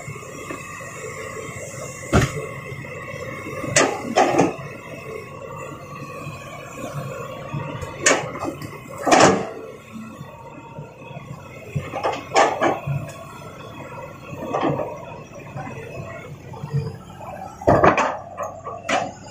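Rocks knocking and clattering as an excavator loads them into a dump truck: about eight separate knocks at uneven intervals over a steady motor hum.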